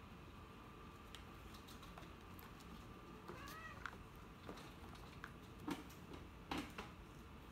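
A cat gives one short meow about halfway through, its pitch rising and then falling. Two sharp knocks near the end are the loudest sounds.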